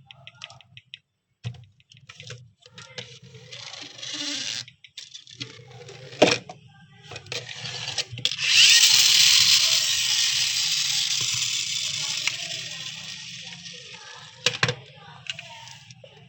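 Packaging of a diecast model car being handled and opened: irregular rustling and crinkling, two sharp knocks, and a long scraping rustle about halfway through that fades over several seconds.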